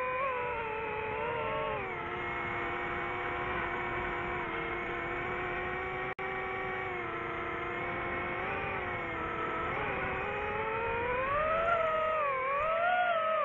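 DJI FPV drone's four motors and propellers whining, the pitch rising and falling smoothly as the throttle changes, with a brief break in the sound about six seconds in.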